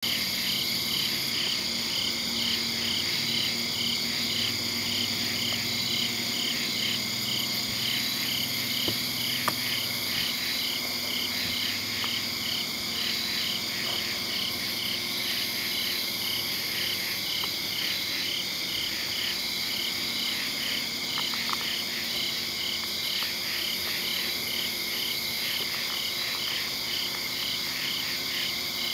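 Night chorus of calling insects: a continuous high-pitched trill with a pulsed chirp repeating about two to three times a second.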